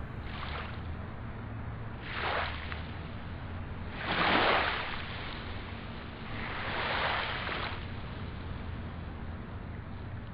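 Sea waves washing in: four surges of surf that swell and fade, the loudest about four seconds in, over a low steady hum.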